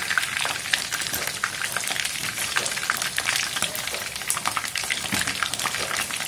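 Chicken wings and a chicken leg frying in hot oil in a wok: a steady sizzle full of small crackling pops from the skin.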